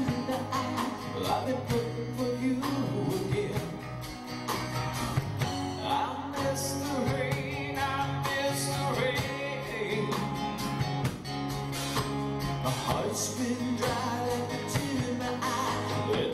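Male lead vocalist singing the chorus of a live acoustic rock song, backed by acoustic guitar, bass and drums.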